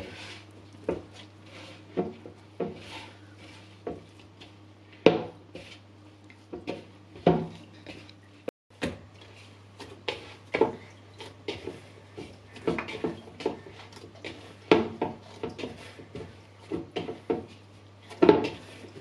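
Hands kneading soft yeasted naan dough in a bowl: irregular soft thumps and knocks as the dough is pressed and turned against the bowl, over a steady low hum.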